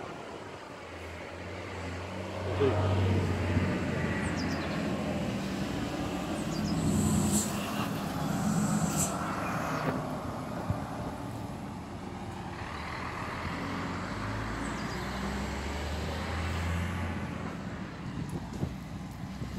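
Coach bus engine running close by, louder for the first half, with two brief high hisses about seven and nine seconds in.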